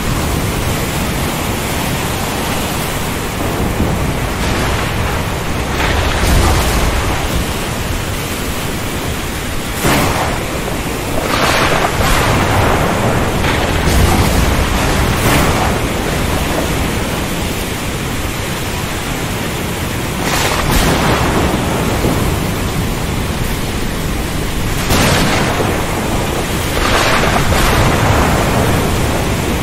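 Thunderstorm at sea: a steady hiss of heavy rain and ocean surf, with thunder cracking and rumbling about half a dozen times.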